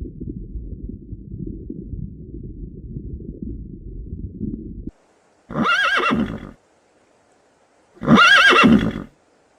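A horse whinnying twice, each a wavering call about a second long. Before the calls comes a low, muffled rumble that stops abruptly about five seconds in.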